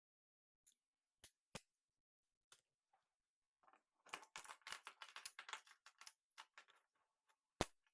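Soft clicks of plastic magnetic building tiles snapping together: a few separate clicks, then a couple of seconds of rapid clattering as pieces are handled and fitted, and one sharper click near the end.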